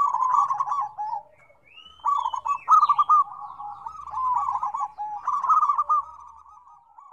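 Several zebra doves (perkutut) calling at once, their rapid staccato coos overlapping, with a short lull about a second in; the calling thins out and fades near the end.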